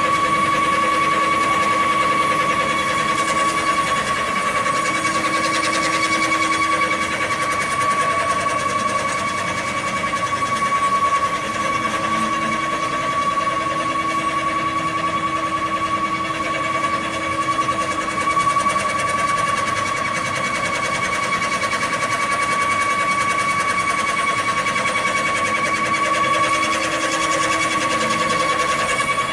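Workshop machinery running steadily: a constant high-pitched motor whine over a mechanical din, with a lower hum that drops out briefly a couple of times.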